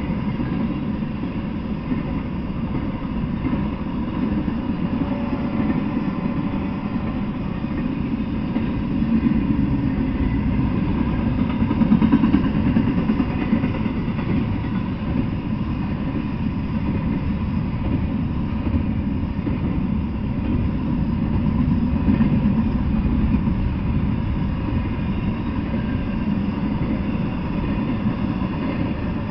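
Intermodal freight train's cars rolling past: a steady low rumble of steel wheels on rail that swells and eases, loudest about twelve seconds in.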